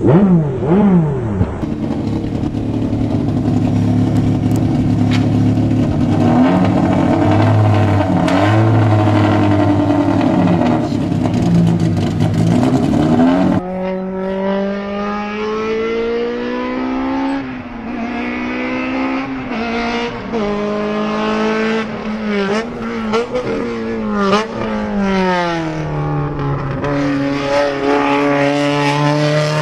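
Honda race car engines revving. For the first dozen seconds an engine idles roughly with a few short blips. Then, after an abrupt change, an engine is revved over and over, its pitch climbing and falling, with one long drop and climb back up near the end.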